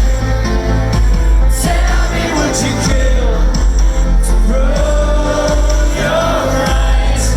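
Live rock band playing loudly: singing over heavy bass and drums, with a few cymbal crashes.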